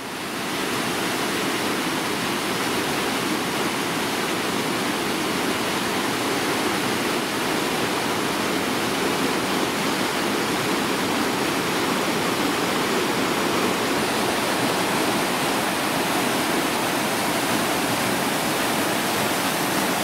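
A mountain creek rushing steadily over rock ledges and into deep pools carved in the stone: a loud, even roar of falling and flowing water.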